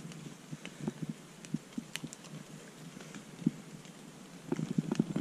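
Scattered crackles and rustles of wet leaf litter and ferns being disturbed by hand as a mushroom is picked, with a quick run of crackles near the end.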